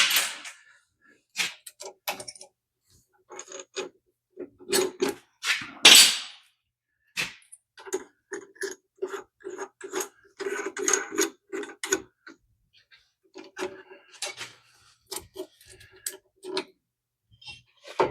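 Metal tools and parts being handled: an irregular string of short clicks, rattles and knocks, with one sharper, louder knock about six seconds in.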